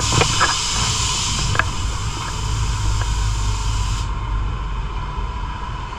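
Long steady hiss of compressed air venting from an amusement ride's pneumatic system as the ride comes down to land, cutting off suddenly about four seconds in, over a low rumble.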